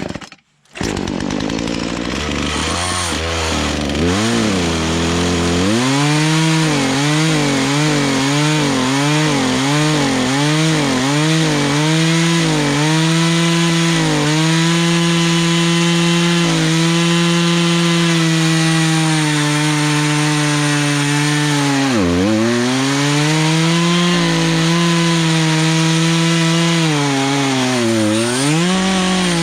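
Poulan Pro two-stroke chainsaw running under load while cutting a log, its carburetor mixture being adjusted as it cuts. The engine note rises and falls rhythmically for several seconds, then steadies, and sags sharply twice near the end.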